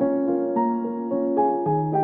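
Background piano music: a gentle melody of sustained notes changing every quarter to half second.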